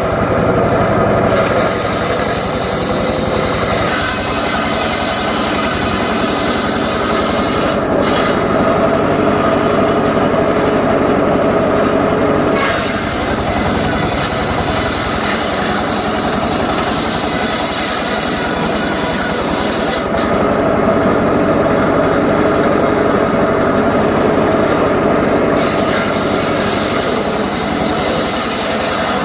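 Homemade engine-driven circular saw cutting johar wood. The engine runs steadily under load, and the cutting noise changes sharply a few times, about eight seconds in, around twenty seconds in and a few seconds later.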